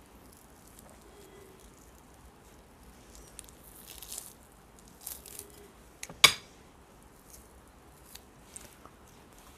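Fried chicken being pulled apart by hand and eaten: soft crackles and mouth sounds, with one sharp click a little past six seconds in.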